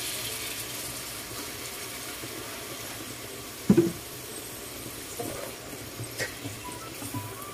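Pork and yardlong beans sizzling steadily in a hot wok, with one short knock about halfway through.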